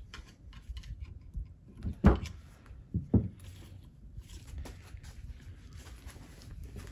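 Metal clunks and clicks of a shift selector rail and fork being worked out of a Volvo M40 gearbox case, with a heavy knock about two seconds in and two more just after three seconds.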